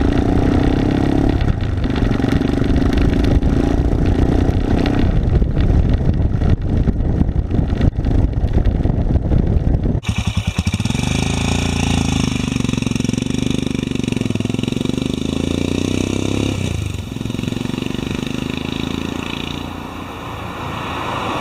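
Royal Enfield Himalayan's single-cylinder engine running hard under way, its note dipping briefly now and then. About ten seconds in the sound changes abruptly to a different, steadier mix of engine noise with a high whine over it.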